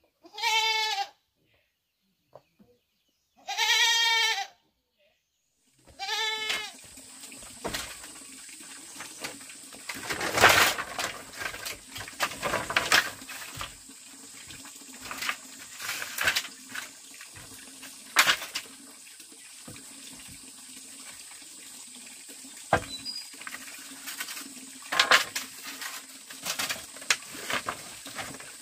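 A goat bleats three times, each a wavering call under a second long. Then irregular knocks and splashing noises run over a steady low hum, the loudest burst about ten seconds in.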